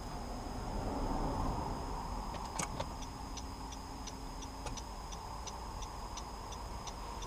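Steady road and tyre rumble inside a rolling Honda Accord's cabin. A single click comes a little before three seconds in, and then a regular light ticking starts, about three ticks a second.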